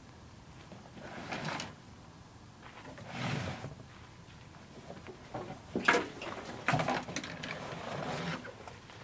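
Gear being handled: two rustling, shuffling noises, then a busy run of clicks and knocks, the sharpest knock about six seconds in.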